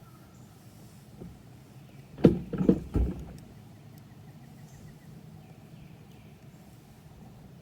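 Three or four sharp knocks in quick succession about two seconds in, gear or a paddle bumping against the kayak, over a quiet outdoor background.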